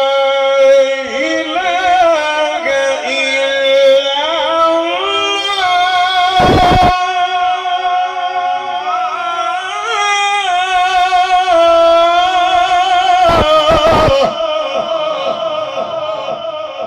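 A man reciting the Quran in a drawn-out melodic style, amplified through the mosque's microphones and PA, holding long ornamented notes that waver and bend; the phrase tails off near the end. Brief bursts of noise cut across the voice about six and a half seconds in and twice around thirteen to fourteen seconds.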